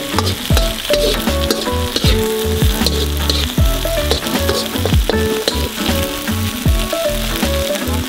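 Breaded chicken pieces sizzling as they fry on a hot griddle plate, with background music with a steady beat playing over them.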